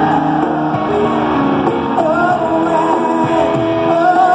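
Rock band playing live, with electric guitars and drums under a sung melody, recorded from the audience.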